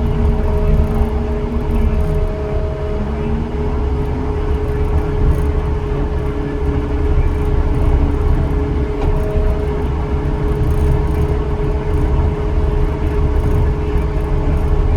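Skid steer with a Suihe SSVR-72 vibratory roller attachment running steadily: a deep, even rumble with a constant high whine over it.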